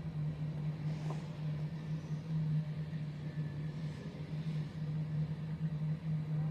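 Steady low drone of unknown origin, heard from the sky, holding one pitch without a break, with a faint click about a second in.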